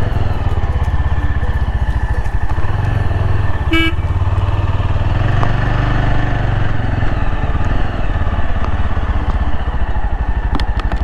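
Yezdi Adventure's single-cylinder engine running steadily as the motorcycle rides along, heard from the rider's seat, with a single short horn toot about four seconds in.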